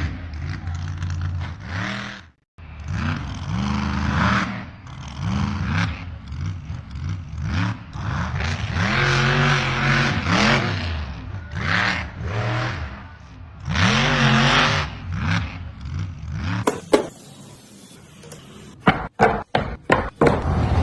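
Off-road 4x4 engine revving hard, its pitch swinging up and down again and again under load. Near the end the engine gives way to a run of sharp cracks and clicks.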